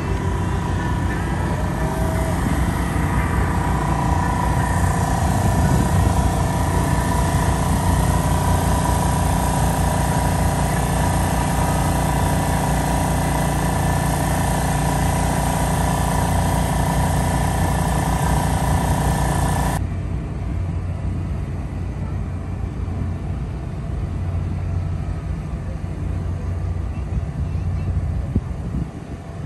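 Steady vehicle engine noise with a hiss over it; the hiss cuts off abruptly about twenty seconds in, leaving a lower drone.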